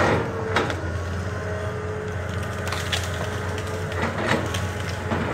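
Heavy wood cracking and splintering in several sharp snaps as a honey locust tree is broken down by a Caterpillar excavator, whose diesel engine runs steadily underneath.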